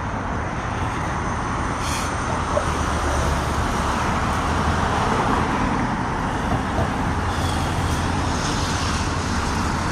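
Street traffic: steady road noise from passing cars, swelling about five seconds in as a vehicle goes by.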